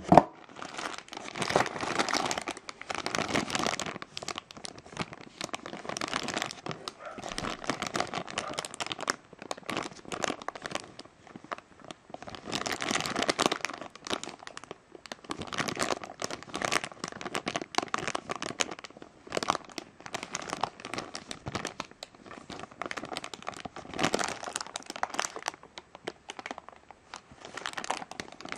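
Clear plastic bag crinkling and crackling irregularly as it is handled and pulled open around a boxed action figure, with short pauses between bouts. A brief sharp tap at the very start is the loudest moment.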